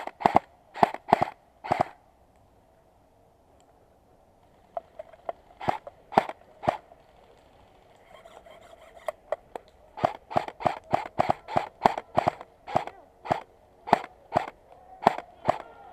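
Airsoft guns firing single shots in quick succession, about two or three a second, each a sharp crack. The shots come in runs: a few at the start, a short run after a pause of a couple of seconds, then a long run through the rest.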